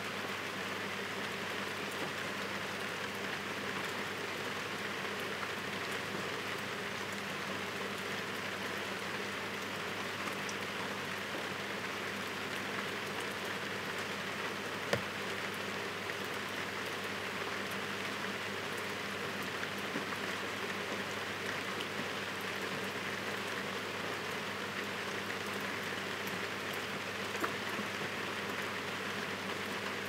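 Heavy rain falling steadily, an even dense hiss, with a single sharper tap about halfway through and another near the end.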